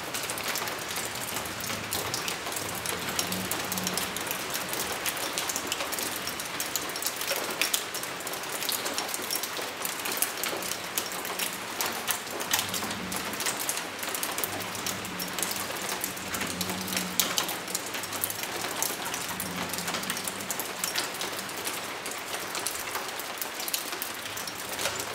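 Steady rain: a dense, even patter of many small drop hits that runs on without a break.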